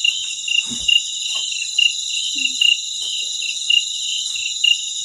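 Night-time insect chorus: a steady high-pitched drone with a chirp pulsing about twice a second over it.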